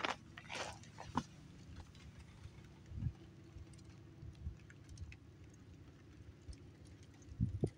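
A few footsteps crunching on gravel in the first second or so, over a steady low hum. There is a single low thump about three seconds in, and low rumbling bumps on the microphone start near the end.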